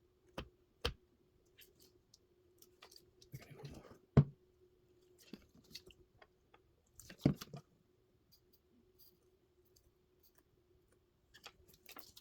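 Scattered light clicks and taps of soldering tools being handled during tinning. The sharpest knock comes about four seconds in, with another cluster a little after seven seconds, over a faint steady hum.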